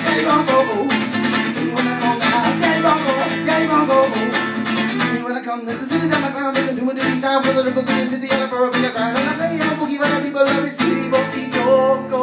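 Acoustic guitar strummed fast and hard in a quick, steady rhythm: a live solo guitar break without words.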